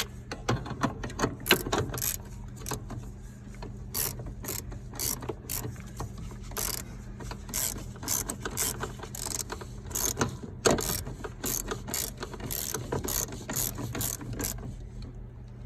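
Ratchet wrench clicking in irregular runs as the bolts of a replacement accelerator pedal are tightened down.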